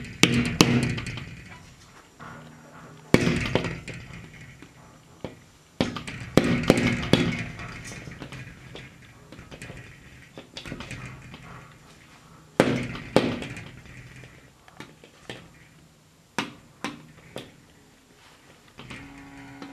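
A hornbill striking a glass sliding door with its bill: sharp knocks and taps, some in quick flurries of several, others single, with short pauses between.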